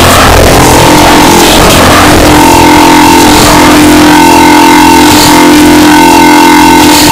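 Loud, harshly distorted electronic audio: a dense, noisy stretch, then from about two seconds in a steady buzzing tone held over harsh hiss.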